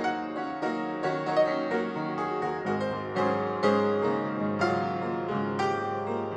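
Background piano music, a slow run of single notes struck about twice a second.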